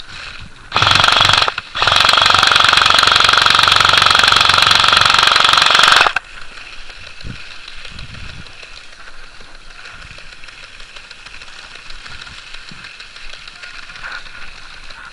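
Airsoft electric gun (AEG) firing on full auto: a short burst about a second in, then a long burst of about four seconds that cuts off suddenly.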